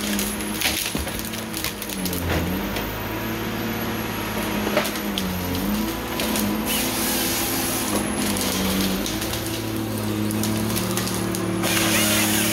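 Tigercat 855 tracked harvester running steadily, with a faint high whine over the drone; the engine dips in pitch twice. Cracking and knocking of wood and branches as the Log Max harvester head grips the timber, busier near the end.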